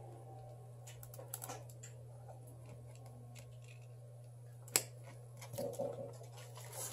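Small scattered clicks and taps of a smartphone and small repair tools being handled on a workbench, with one sharper click a little before five seconds in, over a steady low hum.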